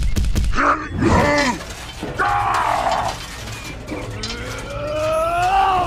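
Dubbed cartoon-style straining groans: several short pitched groans, then one long groan that slowly rises and drops off near the end. There are a few sharp clicks near the start.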